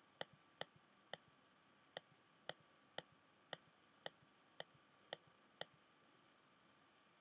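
Faint computer mouse-button clicks, about two a second and about eleven in all, some followed by a softer release click. They stop near the end.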